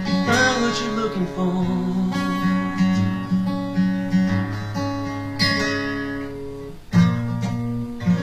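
Acoustic guitar strumming chords in a steady pattern, with a sharp, loud strum about seven seconds in.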